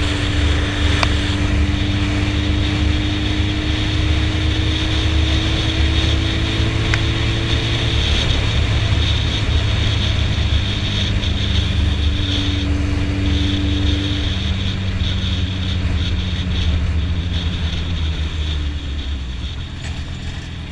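Suzuki Hayabusa inline-four with M4 aftermarket exhaust running at a steady cruise, heard through heavy wind rumble on the camera's built-in microphone. The engine note falls and the level drops over the last few seconds as the bike slows.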